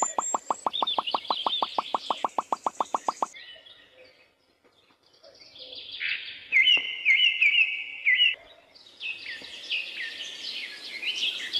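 Songbirds chirping and twittering in repeated high phrases. For the first three seconds a fast, even ticking beat, about eight a second, runs under them and then stops, followed by a short near-silent gap before the chirping resumes.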